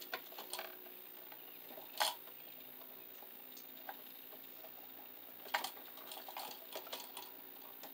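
Stiff copper house wiring and a plastic wire nut being folded and pushed into a plastic electrical box, making scattered light clicks and knocks. There is a sharper click about two seconds in and a run of clicks about three-quarters of the way through.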